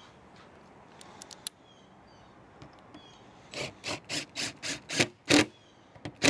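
Cordless power driver sinking a galvanized self-tapping roofing screw through a solar panel mount into the RV roof truss, run in about seven short trigger bursts a few times a second, then one more loud burst near the end.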